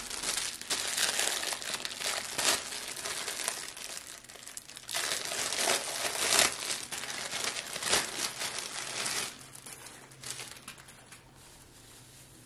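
Plastic packaging being crinkled and rustled in the hands as a Christmas tinsel garland is unwrapped, in irregular bursts that die down after about nine seconds.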